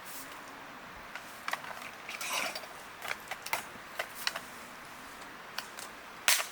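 Scattered light clicks and knocks, with a brief rustle a little over two seconds in and one sharp, louder click near the end.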